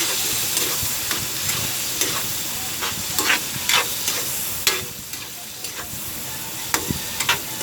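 Ground pork and squid balls sizzling in oil in a wok-style pan, with a steady hiss, while a spatula stirs them, scraping and knocking against the pan many times.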